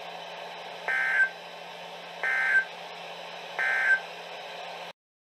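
Three short digital data bursts from a NOAA Weather Radio Emergency Alert System broadcast: the SAME end-of-message code, sent three times about a second and a half apart over a steady radio hiss, marking the end of the alert. The hiss cuts off suddenly near the end.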